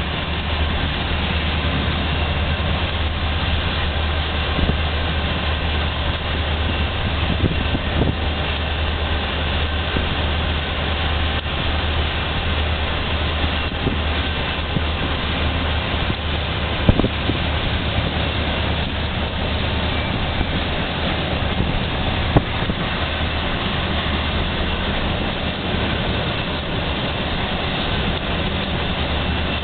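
Chicago & North Western diesel locomotive running at speed, heard from a vehicle pacing alongside: a steady low engine drone mixed with the rush of road and wind noise, with a few brief sharp clicks.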